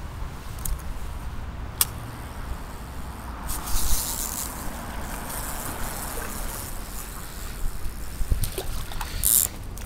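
Wind rumbling on the phone's microphone over the steady sound of shallow river water, with a few handling clicks and two short bursts of hissing noise, about four seconds in and again near the end.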